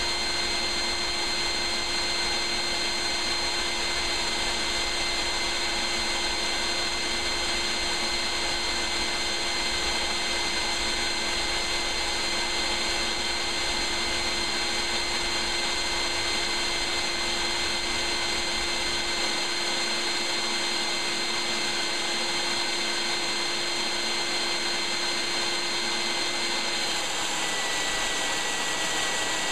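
Shop vacuum running steadily with a whine, pulling vacuum through a Lego inline four-cylinder vacuum engine run at high RPM. A low rumble underneath drops away about two-thirds of the way in, and the whine changes pitch near the end.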